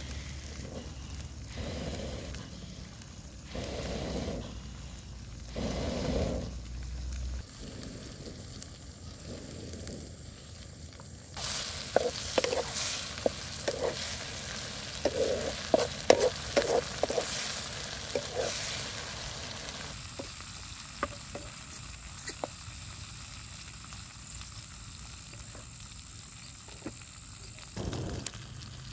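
Grasshoppers frying in a metal wok, sizzling. For several seconds in the middle, from about a third of the way in, a wooden spatula stirs them, with sharp scraping clicks against the pan over a louder sizzle.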